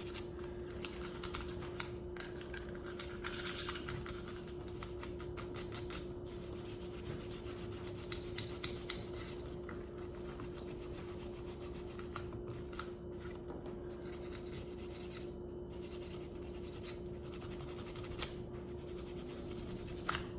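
Nylon cleaning brush scrubbing the polymer frame of a Taurus G3C pistol: a rapid, scratchy rubbing, with a few sharp clicks about eight seconds in, over a steady low hum.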